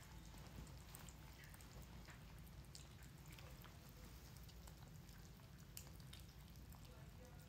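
Faint wet clicking and smacking of several kittens eating from a shared plate, over a low steady hum.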